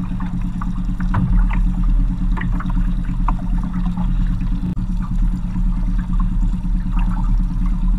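Small boat's outboard motor running steadily with a low, even hum, with scattered light clicks and taps over it.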